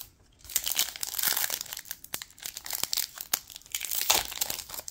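Foil wrapper of a trading-card pack being torn open by hand, crinkling and crackling, starting about half a second in.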